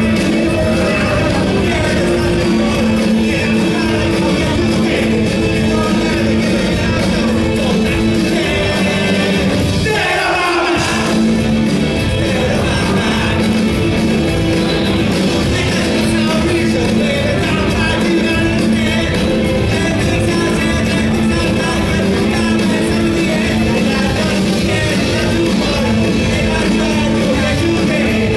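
Rock band playing live: electric guitar and drums with a male singer's voice over them. About ten seconds in, a falling sweep drops down through the band's sound.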